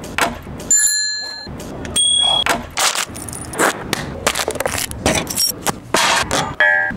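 A bicycle bell rung about a second in, its ring dying away, and rung again briefly at about two seconds. This is followed by a rapid string of sharp knocks and slaps, among them a hand slapping a concrete wall and a shoe kicking a metal fence.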